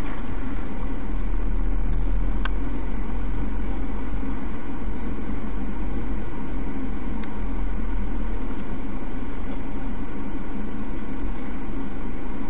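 Steady engine and road noise of a moving car, heard from inside the cabin through a dashcam microphone, with a sharp click about two and a half seconds in.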